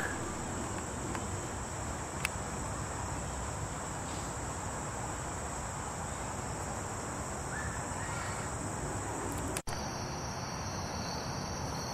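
Steady chorus of crickets and other insects, an even high-pitched trill, briefly breaking off for an instant near the end.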